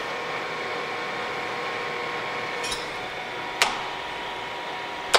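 Clausing Colchester 15x50 gap-bed engine lathe running steadily with the power cross feed engaged, its gearing giving a steady hum with several held tones. A sharp click sounds about three and a half seconds in.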